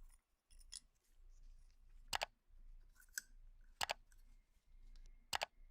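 Sharp metallic clicks from a corroded Colt M1911 pistol's parts being handled and worked during disassembly: three distinct clicks about a second and a half apart, with fainter ticks between.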